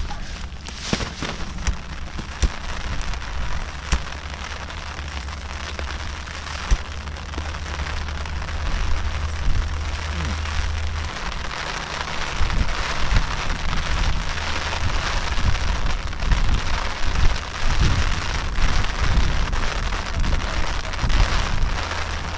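Steady rain falling, an even, dense hiss, with wind rumbling on the microphone underneath.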